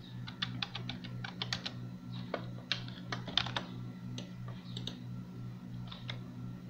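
Irregular clicking of computer keyboard keys and a mouse as a value is typed in and the view is adjusted, over a steady low hum.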